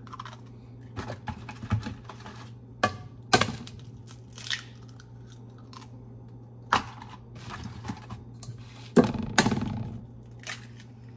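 Raw eggs being cracked by hand: sharp cracks of eggshell and the crunch and crinkle of the shells being pulled apart, coming at irregular intervals, with the loudest crack a little after nine seconds in.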